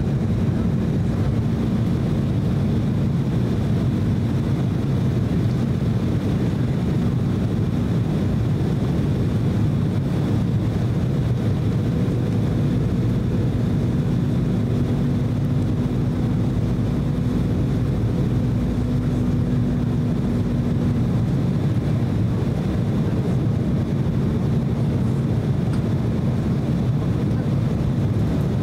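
Cabin noise inside an Embraer E190 airliner in flight: a steady low roar of its GE CF34 turbofan engines and the airflow over the fuselage, with a faint steady hum on top that is a little stronger in the middle.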